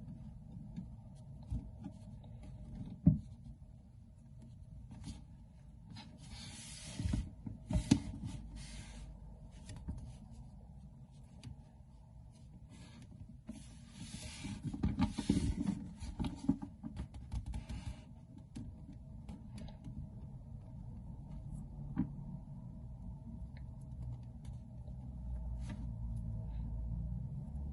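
Scattered rubbing and rustling with a few sharp knocks, the loudest about 3 seconds in, over a steady low hum.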